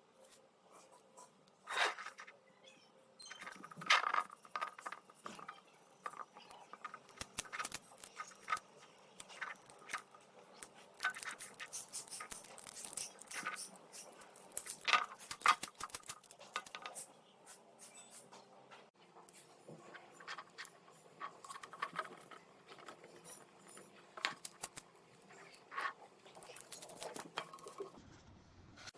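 UV DTF transfer film being handled, crackling and crinkling, with irregular clicks and taps throughout.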